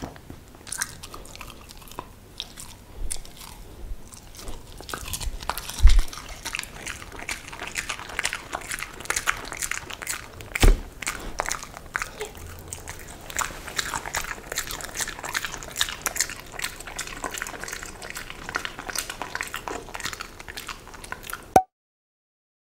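Samoyed biting and chewing broccoli florets, close-miked: a steady run of wet crunching and crackling, with two louder thumps about six and eleven seconds in. The crunching stops abruptly near the end.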